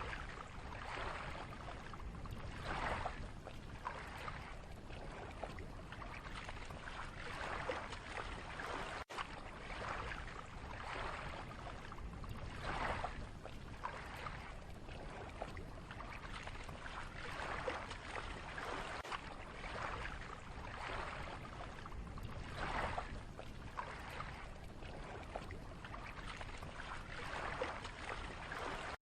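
Lake water lapping in small waves, a soft splash swelling about every two seconds over a steady watery wash. It cuts off suddenly near the end.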